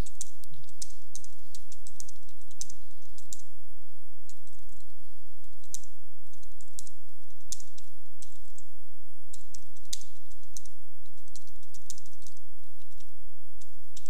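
Computer keyboard typing: irregular runs of key clicks as a sentence is typed, over a steady background hum.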